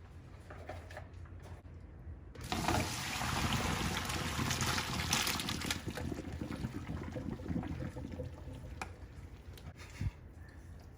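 Hot pasta water being poured off boiled lasagna noodles into a sink. A splashing gush starts about two seconds in, is strongest for a few seconds, then trails off, with a sharp knock near the end.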